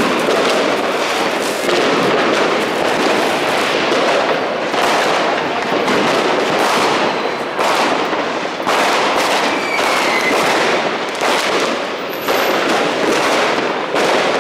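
Dense, nonstop crackling and banging of many fireworks and firecrackers going off at once, one bang running into the next. A short whistle rises above it past the middle.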